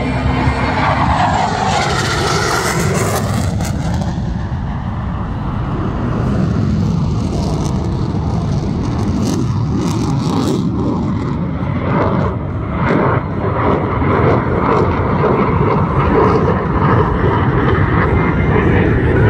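Military fighter jet flying past, its engine roar loud and continuous, with a sweeping whoosh in the first few seconds.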